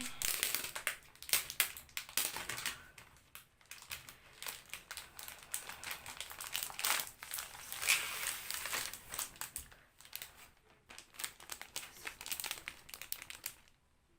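Plastic wrapping crinkling and rustling in irregular bursts as a sealed package is opened by hand. It stops abruptly near the end.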